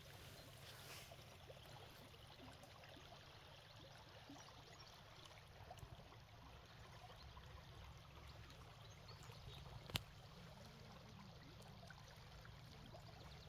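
Small river's water running, faint and steady. One sharp click about ten seconds in.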